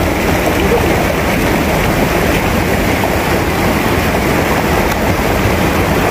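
Fast-flowing river rushing over rocks and small rapids: a steady, loud rush of water.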